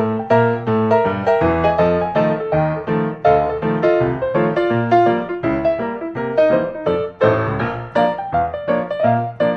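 Background piano music: a lively melody over a bass line, notes struck at an even pace.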